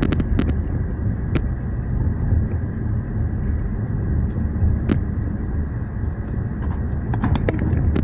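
Car driving on a city road, heard from inside the cabin: a steady low rumble of tyres and engine, with a few short sharp clicks here and there, most of them near the end.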